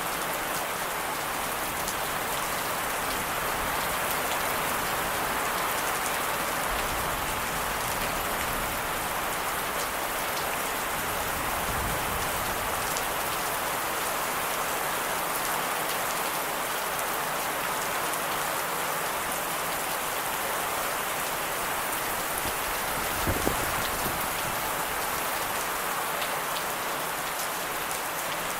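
Steady rain from a thunderstorm falling and hitting surfaces, an even hiss of drops. A single brief low thump sounds near the end.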